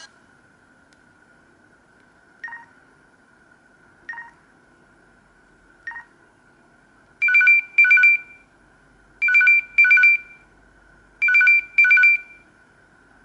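LG KP500 phone ringtone playing through the phone's speaker. Three short electronic beeps about a second and a half apart are followed by three double rings about two seconds apart, imitating an old telephone bell.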